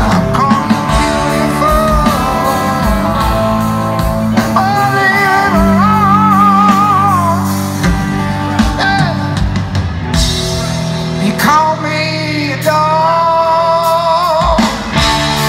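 Rock band playing live: electric guitars, bass and drums under sung melody lines, picked up loud by an audience member's recorder in a large hall.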